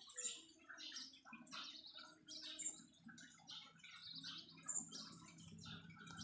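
Small aviary birds chirping and twittering, many short calls in quick succession, over a faint low steady hum.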